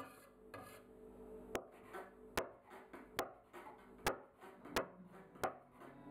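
Metal bench scraper chopping strips of struffoli dough into small squares on a wooden table: a series of sharp knocks of the blade on the wood, roughly one every three-quarters of a second, with soft scraping between them.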